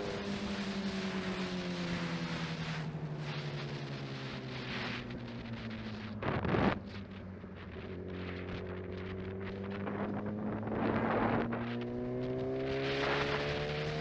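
A vehicle engine running under way, its pitch dropping slowly as it slows down and then climbing again as it speeds back up, with road and wind noise. There is one sharp knock a little past halfway.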